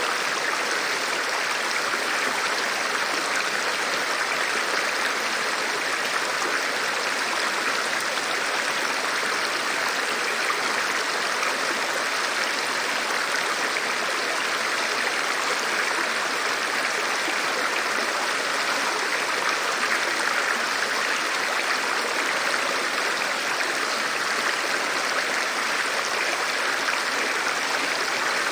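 Rushing river water, a steady, unchanging rush with no breaks.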